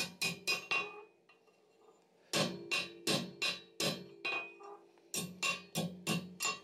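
Hammer blows on red-hot steel over an anvil horn, struck in quick runs of about three or four a second, each blow leaving the anvil ringing. The blows stop for about a second and a half soon after the start, then resume, with a brief pause near the end.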